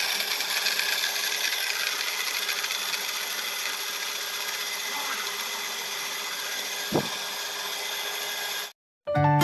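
Panasonic blender motor running steadily as it grinds shallots and candlenuts into a spice paste in a small grinding jar, with one sharp knock about seven seconds in. It cuts off suddenly near the end as it is switched off.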